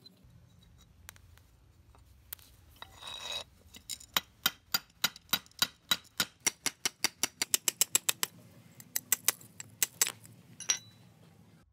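Rapid series of sharp metallic taps, about four or five a second for roughly seven seconds, on the rusty gear housing of a Makita 4100NB cutter as its spindle is knocked out of the bore. A brief scrape comes just before the tapping starts.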